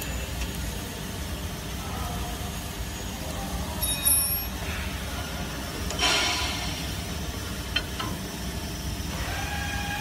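Gloved hands handling the steel roller tooling of an HVAC round duct seam closer: a short high metallic clink about four seconds in and a metallic scrape about two seconds later, over a steady low machine hum.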